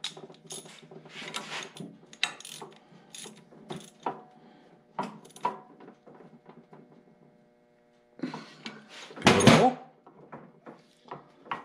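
Small ratchet wrench clicking in short strokes while a jam nut is tightened on a Farmall Cub rear axle housing, with light clinks of steel on the cast-iron housing. It is quiet for a moment, then a louder clatter of metal parts comes about nine seconds in.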